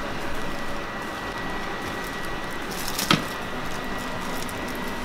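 Cooked rice being shaken out of a plastic bag and pressed by hand onto ground beef and flour tortillas, giving a soft rustle and squish over a steady background hiss. One sharp click comes about three seconds in.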